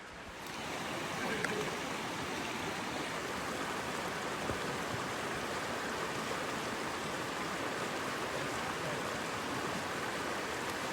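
River water rushing steadily over a shallow riffle, an even hiss of running water that grows louder about half a second in and then holds.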